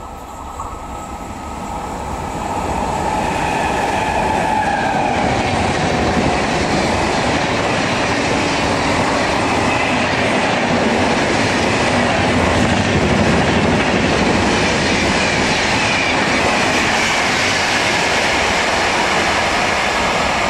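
Express passenger train passing at speed, a steady loud rush of wheels on rail with clickety-clack. It grows louder over the first few seconds as the train comes close, then holds.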